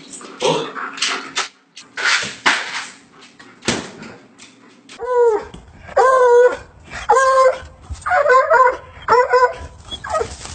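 A dog whining and yelping: a run of about six short, high whines, each bending up and down, starting about five seconds in. Before them come rougher, noisier sounds.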